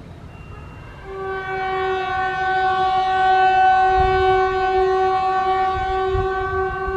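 WAP4 electric locomotive's horn sounding one long, steady blast. It starts about a second in as the train approaches.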